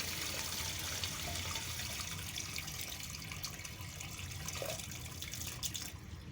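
Water rushing steadily out of an opened drain valve as a commercial boiler is drained down, the flow slowly weakening.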